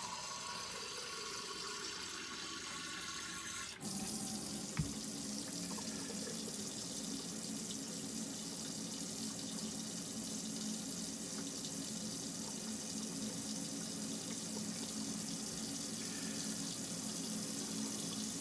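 Hot water running steadily from a camper's faucet in a continuous draw off an Alde water heater. The sound changes abruptly about four seconds in, after which a steady hum sits under the running water, with a single knock about a second later.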